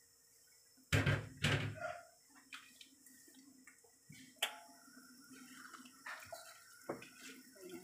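Two loud thumps about a second in, then scattered light knocks and liquid sounds as a wooden spatula pushes napa cabbage leaves down into a pot of broth.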